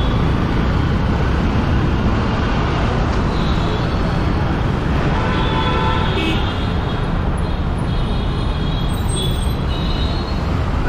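Motorcycle riding through slow city traffic, heard from the rider's own camera: a steady, loud rush of the bike's engine, wind and road noise, with the surrounding traffic mixed in.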